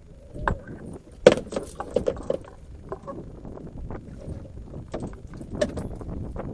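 Irregular knocks and clatters on a small sectional fishing boat, the sharpest about a second in and a quick cluster soon after, over a low rumbling noise.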